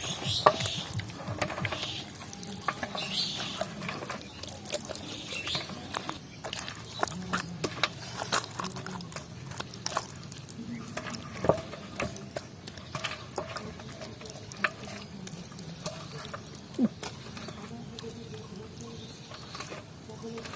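Hands working a wet spice paste into a raw whole chicken: soft squelches and slaps with scattered small clicks.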